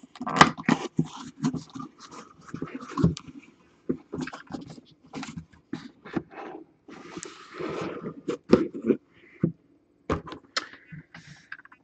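A cardboard box being opened by hand: an irregular run of scrapes, rustles and taps as the flaps are pulled back. Near the end, a clear plastic mini-helmet display case is handled and lifted out.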